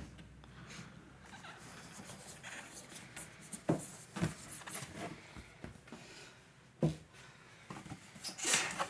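A cardboard box being handled and opened by hand: scattered light knocks and rubbing of the packaging, with a louder rustle near the end.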